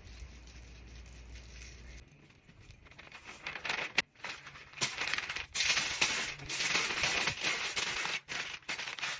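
Crinkly wrapping being handled and pulled open, rustling and crackling in irregular bursts that start about three seconds in and grow loud near the end, after a faint low hum.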